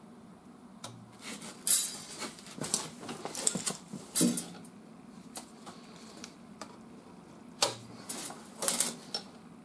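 Body filler being spread and smoothed with a hand spreader over a welded sheet-metal patch panel on a fender: a run of short, irregular scraping strokes, some sharp, with a few louder scrapes near the start, the middle and the end.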